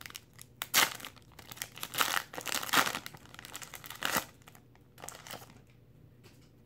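Foil wrapper of a trading card pack being torn open and crinkled by hand: a run of irregular rips and rustles that thins out after about four seconds and goes quiet near the end.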